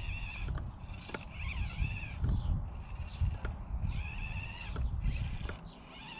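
Axial SCX24 Bronco micro crawler's small electric motor and gearbox whining as it crawls over rock. The whine stops and starts and shifts in pitch with the throttle. Under it is a low, uneven rumble, with a few small clicks of the tyres and chassis against the stone.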